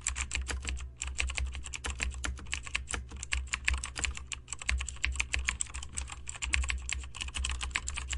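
Fast computer-keyboard typing: a dense run of key clicks with a brief pause about a second in, over a low steady hum.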